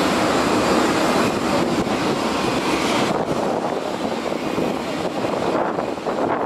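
Twin-engine Airbus A319 jet airliner on short final and flaring for touchdown: steady jet engine noise that loses its high hiss about three seconds in, leaving a quieter, lower rumble.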